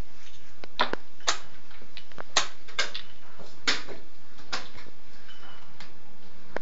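Sharp clicks and knocks of chess pieces being set down on boards and chess clock buttons being pressed during rapid play, several in quick succession in the first four seconds, then sparser.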